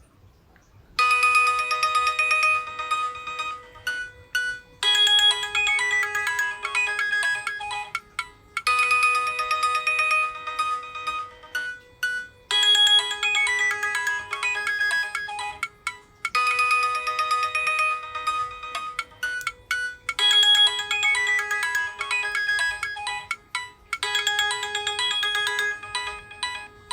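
Nokia 6555 mobile phone ringtone: a bright electronic melody of short, quick notes over a held lower note. It starts about a second in and plays in repeating phrases of about four seconds.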